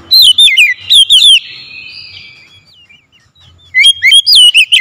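Oriental magpie-robin singing loud, clear whistled phrases: a rapid run of sweeping rising and falling notes at the start, a softer held note, then a second rapid run near the end.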